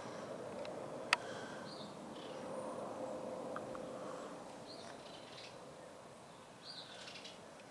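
Faint, steady rumble of a Boeing 787-9 airliner's Rolls-Royce Trent 1000 engines passing high overhead, swelling a little and then fading. Small birds chirp now and then, and there is one sharp click about a second in.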